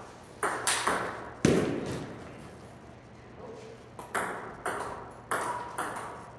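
Table tennis rally: the celluloid ball clicking back and forth off paddles and table, with one louder, deeper knock about a second and a half in. After a short lull a new exchange starts with a steady run of clicks.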